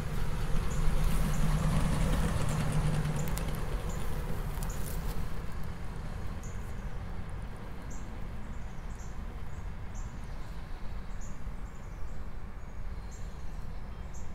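A 1946 Chrysler New Yorker with its 323-cubic-inch straight-eight engine driving past, loudest in the first few seconds and then fading as it moves away. Small birds chirp repeatedly in the background.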